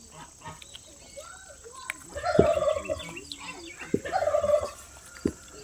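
Two short, rapidly pulsing animal calls, about two and four seconds in, with a few sharp low thuds around and after them.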